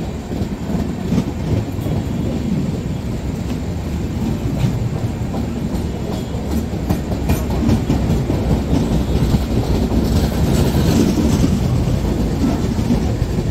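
Passenger train coaches rolling past along a station platform: a steady rumble with wheels clattering over rail joints, growing a little louder in the last few seconds.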